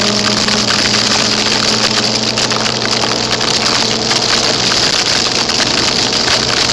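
Loud, dense crackling and pattering of wet snow striking the tape that holds the camera to the jacket, over the steady hum of a scooter engine under way.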